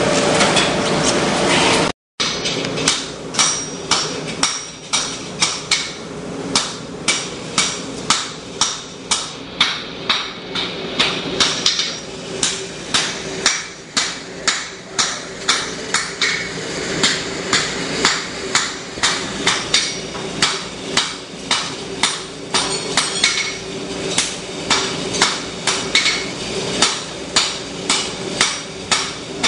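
Forging hammer striking hot steel on an anvil in a steady rhythm of about two blows a second, with a ringing tone carrying between blows. The hammering starts about two and a half seconds in.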